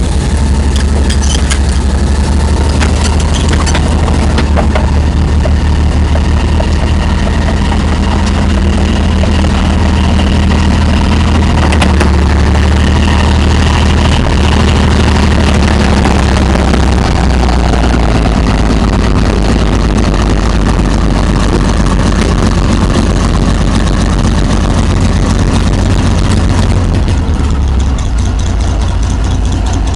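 Tiger I tank's Maybach V12 petrol engine running with a deep, steady drone, a little quieter near the end. A few metallic clanks sound in the first few seconds.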